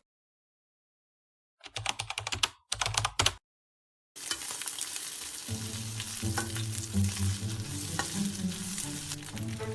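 A short cluster of quick clicks about two seconds in, then from about halfway a steady sizzle of food frying in a pan with a spatula stirring it.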